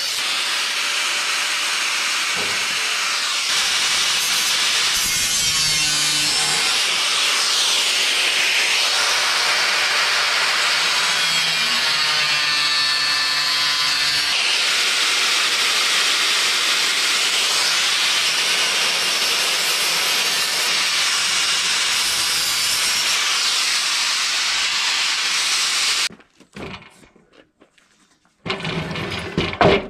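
Angle grinder with a cut-off wheel cutting through thin sheet steel: a steady, loud grinding hiss that stops suddenly about 26 seconds in. A brief clatter follows near the end.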